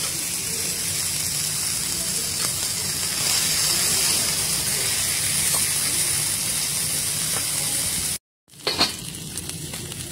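Thick beef fillet steaks sizzling steadily as they sear on a hot flat steel teppanyaki griddle. About eight seconds in the sound cuts out for a moment, then the sizzle returns quieter with a single sharp click.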